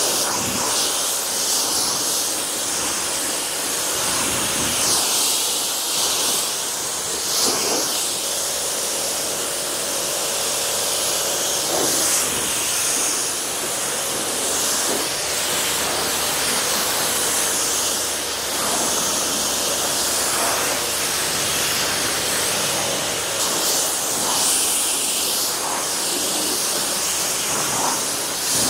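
Steady hissing spray of water rinsing a car's paintwork, washing off a freshly applied polymer spray sealant, with small swells in the spray as it moves over the panels.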